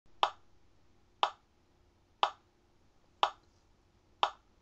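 Clock ticking: five sharp ticks, one each second.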